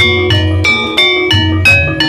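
Gamelan music accompanying an ebeg (kuda lumping) horse dance: metallophone notes struck in a steady stream, about three a second, over low drum strokes.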